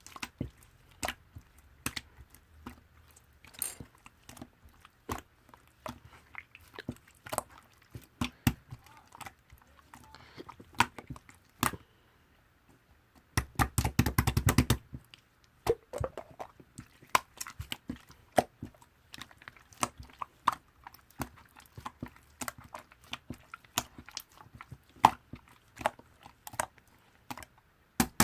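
Slime being played with by hand, giving irregular small sticky pops and clicks, with a quick dense run of crackling pops about halfway through.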